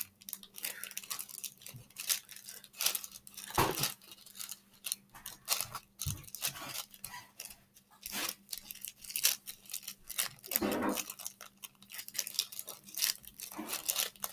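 Slime mixed with foam beads being squished and kneaded by hand, with irregular crunching and crackling and a few louder squelches.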